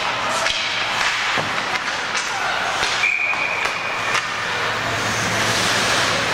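Ice hockey game sounds in an arena: sharp cracks and thuds of sticks, puck and bodies against the boards over a steady din of crowd voices, with a steady high tone lasting about a second about three seconds in.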